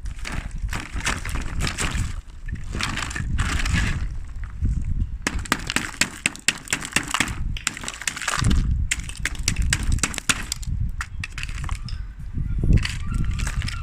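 Ice cubes being crushed and scraped: dense, irregular crunching and crackling in uneven bursts, with a low handling rumble underneath.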